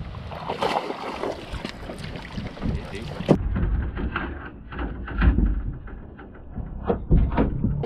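Wind buffeting the microphone, with scattered knocks and clicks; the sharpest knock comes about three seconds in.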